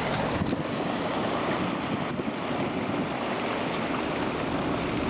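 Water from a cargo ship's wash surging and washing along the shore in a steady rush.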